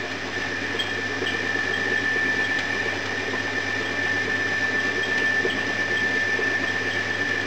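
Homemade foundry sand mixer running, its rotating pan churning green sand and coal dust past the plough. Steady machine noise with a constant high whine and faint, light ticks throughout.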